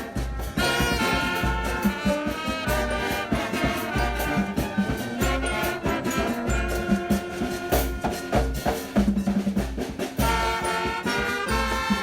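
Background music: an upbeat instrumental with brass and a steady drum beat.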